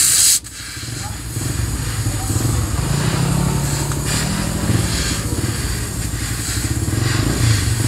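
Gas torch hissing as it heats a rusted scooter frame, with a brief loud rush of gas in the first half-second, under a steady low engine-like hum.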